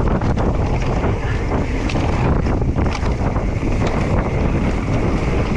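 Wind rushing over the microphone of a mountain bike descending a dirt trail at speed, with the tyres rumbling on the ground and frequent small clicks and rattles from the bike over bumps.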